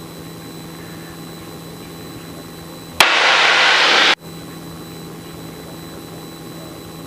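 Piper Cherokee's piston engine droning steadily in flight. About three seconds in, a loud burst of hiss cuts in, drowning out the engine for just over a second, then stops abruptly.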